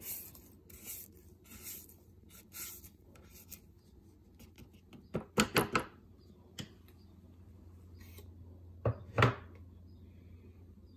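Plastic Thermomix spatula scraping thick cake batter off the sides of the stainless-steel mixing bowl, about six rasping strokes in the first few seconds. A quick run of sharp clicks follows in the middle, then two louder knocks near the end.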